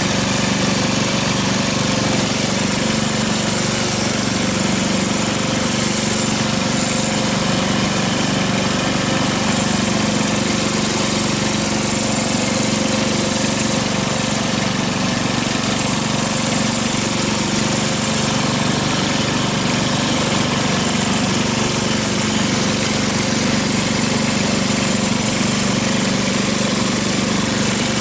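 Riding lawn mower engine running steadily, with no change in speed.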